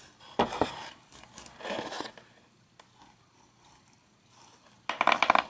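Loose steel ball bearings being prodded out of a vintage Atom 440 bicycle pedal body with a small screwdriver: short bursts of metallic clicking and scraping, a few times, with the loudest, densest clatter near the end.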